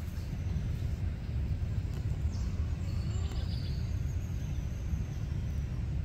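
Steady low outdoor rumble, with a few faint, short, high chirps about halfway through.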